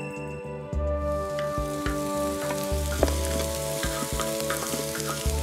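Chopped green onions sizzling hard in oil in a large cast-iron pan, being stirred with wooden spatulas that tick and scrape against the metal. This is the scallion oil being made for kimchi fried rice. The sizzle swells in under a second in.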